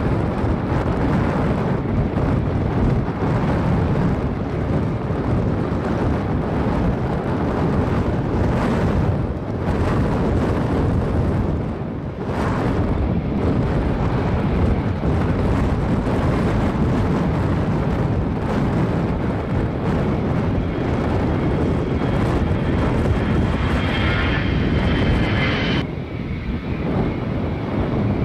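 Lufthansa Airbus A380's Rolls-Royce Trent 900 jet engines running on the ground, mixed with heavy storm wind buffeting the microphone. A faint higher whine rises briefly near the end.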